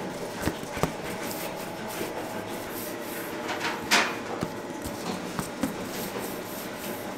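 Bakery work noise: rubbing and handling sounds over a steady background hum, with a few sharp knocks, the loudest about four seconds in.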